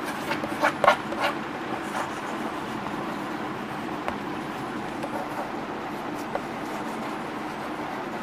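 Chalk writing on a blackboard: a few sharp taps and strokes in the first second and a half, then fainter scratches, over steady background noise.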